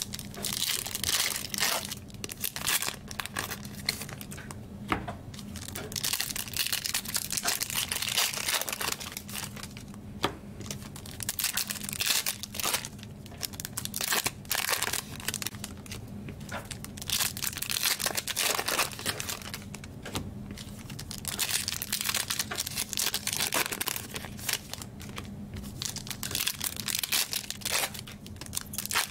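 Packaging being crinkled and torn by hand as trading card packs are opened, in irregular bursts with scattered sharp clicks.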